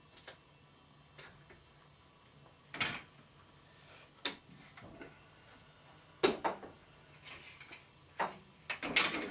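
Woodworking clamps being released and taken off a glued-up bass body on a workbench: a string of scattered clicks and knocks, the loudest about six seconds in and again just before the end.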